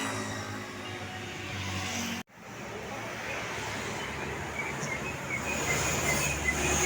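Road traffic: vehicle engines running as vehicles drive past. The sound cuts out abruptly about two seconds in, then the traffic noise resumes.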